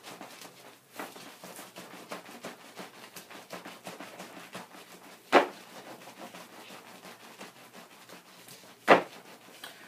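Wet, soapy felt rolled up in rubbery mesh underlayment being rolled back and forth under the palms, a quick run of rubbing, squishing strokes: the rolling stage of wet felting. Two sharp knocks stand out, one about five seconds in and one near the end.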